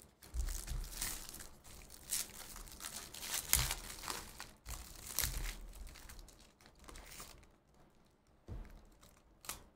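Foil trading-card pack wrappers being torn open and crumpled: a run of dense crinkling with a few sharper rips, easing off about seven seconds in, then a little more near the end.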